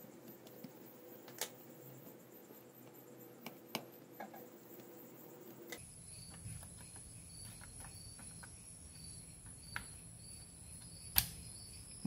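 Faint clicks and taps of a DDR4 laptop RAM stick being handled and slid at an angle into its SO-DIMM slot, with one sharper click about eleven seconds in as the module is pressed down and the slot's side latches lock it in place.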